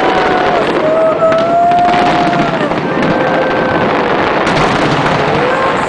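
Fireworks display: dense, continuous bursting and crackling, with several drawn-out whistles sliding in pitch over it.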